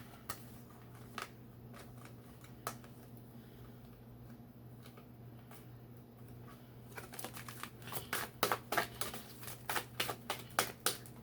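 Deck of tarot cards being shuffled by hand: a few scattered card clicks at first, then from about seven seconds in a quick run of card flicks and snaps.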